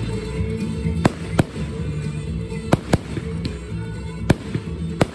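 Aerial fireworks bursting overhead: about six sharp bangs at uneven intervals, over steady background music.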